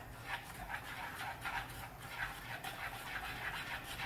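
A dog panting steadily, short quick breaths at about three a second.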